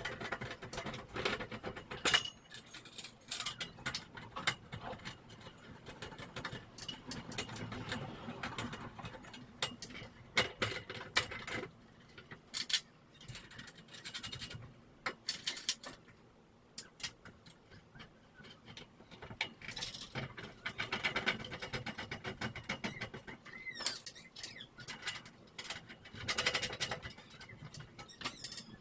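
Irregular clicking, tapping and rattling of hand tools and metal hardware during a garage door opener installation, in short bursts with brief pauses between.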